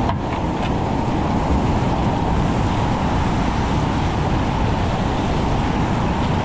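Steady rush of whitewater as a kayak runs a waterfall rapid and drops into the foaming pool below, picked up by an action camera on the paddler.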